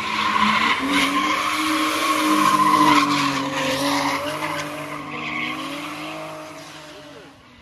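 Two cars sliding through a bend with tyres squealing over hard-revving engines. The sound is loudest in the first three seconds, then fades as the cars pull away.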